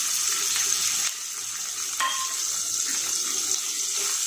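Thinly sliced onions sizzling in hot oil with whole spices in a kadai, a steady frying hiss, with one sharp clink about two seconds in.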